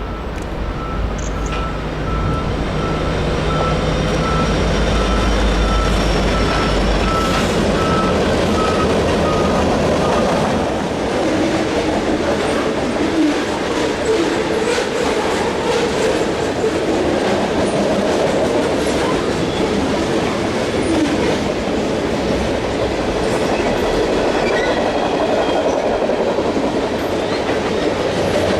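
CN freight train passing: the diesel locomotives' deep rumble goes by first, with a high, evenly pulsing tone that fades out about ten seconds in, the strange sound the uploader attributes to the third locomotive. Then the freight cars clatter past over the rail joints, with a faint wheel squeal.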